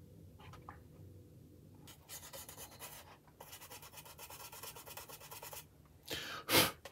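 Fiberglass pen scrubbing along a glued seam on a plastic model kit's fuselage, a rapid fine scratchy rubbing that starts about two seconds in, with a couple of louder strokes near the end. The pen is scouring off dried glue to smooth the joint into a panel line.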